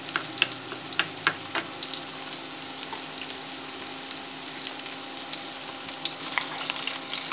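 Chopped vegetables sizzling steadily in oil in a pan. In the first couple of seconds a spoon clinks sharply against a small bowl several times as sauces are stirred together.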